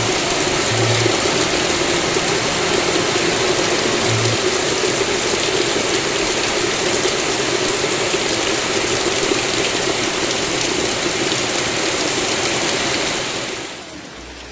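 Heavy rain pouring steadily in a dense, even rush of water, which cuts off abruptly near the end.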